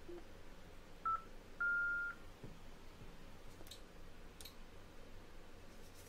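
Yaesu FTM-500DR transceiver's keypad beeps as a frequency is keyed in: a short beep about a second in, then a longer, slightly higher beep half a second later, followed by two faint clicks.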